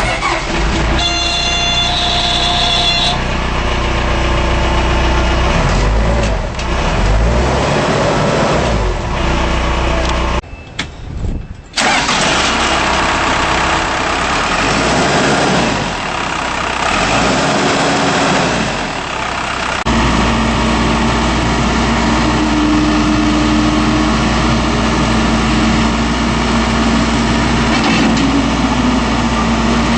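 Diesel engine of a Case 580M backhoe loader running, its speed rising and falling for the first twenty seconds with a brief dropout about ten seconds in, then holding a steady speed.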